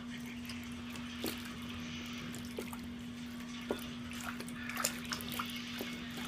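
Bath water in a plastic baby tub sloshing and splashing lightly in short, scattered drips and splashes as the baby moves her arms and legs; these come more often in the second half. A steady low hum runs underneath.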